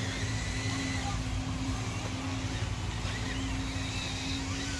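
A steady motor hum with a constant low tone over a low rumble, a faint high whine coming and going.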